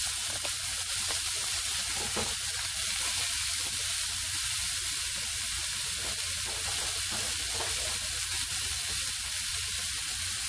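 Diced onion, carrots and celery sautéing in a frying pan, a steady sizzling hiss.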